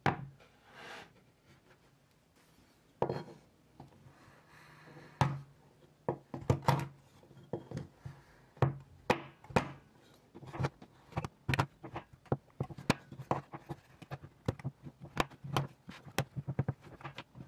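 Chef's knife chopping a dark chocolate bar on a wooden cutting board: repeated sharp knocks of the blade striking the board. A few single strikes at first, then quick, uneven chopping from about six seconds in.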